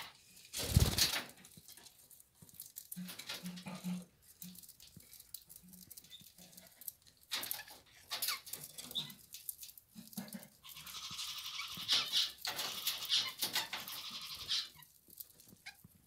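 Budgies cracking millet seeds off a hand-held millet spray: scattered small sharp clicks and crunches of husking seed. A loud thump about a second in, and a stretch of budgie chatter from about 11 to 15 seconds.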